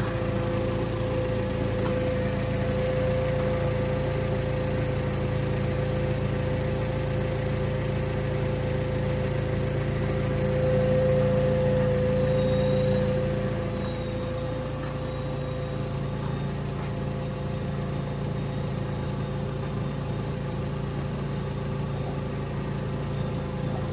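Steady drone of an idling engine, a little louder for a few seconds around the middle and then settling slightly quieter.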